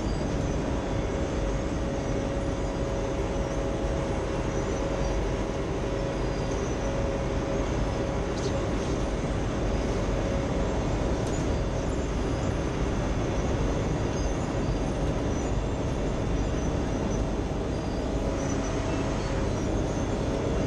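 Wirtgen asphalt milling machine running as it creeps forward, a steady, even machine drone with a constant tone through it.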